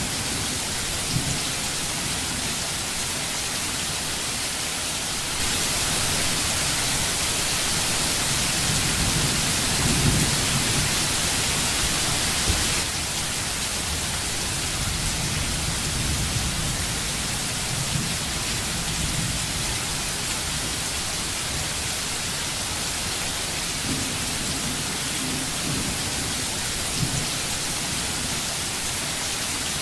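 Steady rain with several low rolls of thunder. The rain gets heavier from about five seconds in until about thirteen seconds in.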